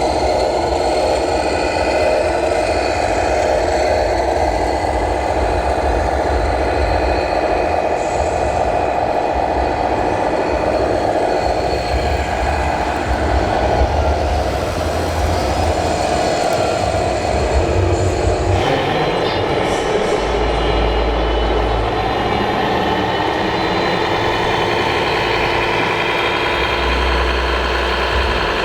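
Radio-controlled scale model trucks running, giving a steady engine-like drone with a low pulsing rumble that shifts to a different pitch and rhythm about two-thirds of the way through.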